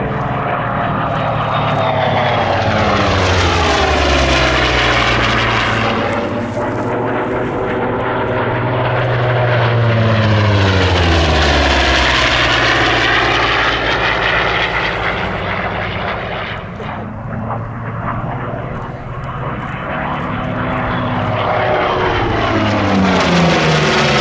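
Hawker Fury's piston engine and propeller in flight, passing over several times. Its drone swells and fades, and the pitch drops as it goes by about 3 s in, again about 11 s in, and once more near the end.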